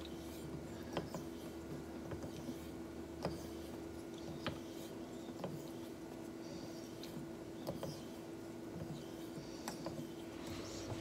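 Faint honing strokes of a laminated straight razor on a wet 5K Shapton water stone, with light clicks roughly once a second as the taped spine turns over on the stone, over a steady low hum.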